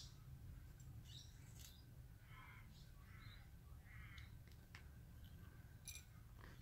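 Near silence, with faint bird chirps a few times over a low steady rumble and a couple of light clicks.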